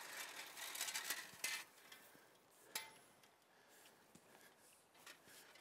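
Faint scratchy rustling, strongest in the first second and a half, with one sharp click a little before the middle, then quieter.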